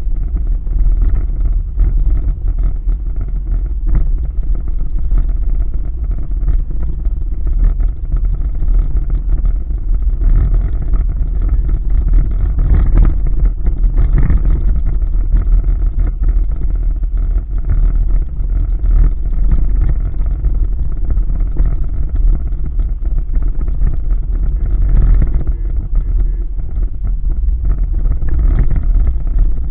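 A car driving on a rough road, heard from inside the cabin: a steady low rumble of engine and tyres.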